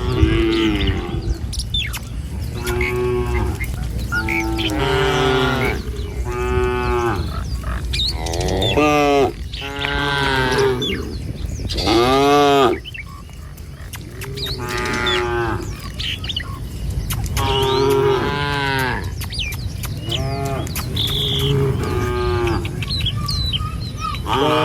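Cattle mooing over and over, a dozen or more calls in quick succession, one every second or two, the calls overlapping at times as several animals in the herd call.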